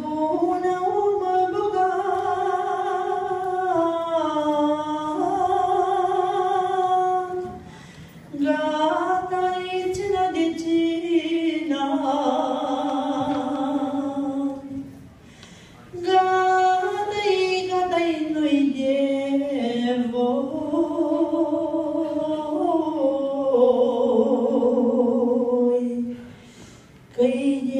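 A woman singing a Romanian folk song unaccompanied into a microphone, in three long, ornamented phrases with wavering held notes, broken by short pauses for breath about 8 s and 15 s in and near the end.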